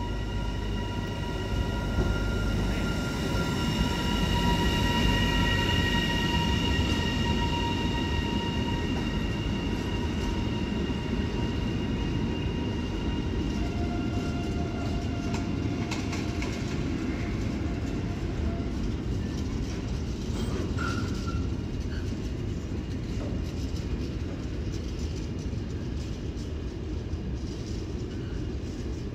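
Container freight train rolling through a station behind an electric locomotive: a steady rumble of wagons and wheels on the rails. A high whine made of several tones sounds over the first ten seconds or so, then fades.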